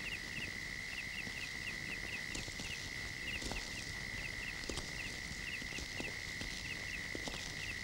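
Crickets chirping at night: a steady high trill with a quicker chirp repeating a few times a second above it. A few faint knocks come through now and then.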